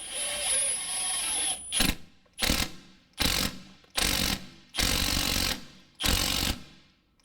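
Ratcheting wrench clicking through about six strokes as it tightens the bottom nut of a stabilizer link, snugging the rubber bushings down.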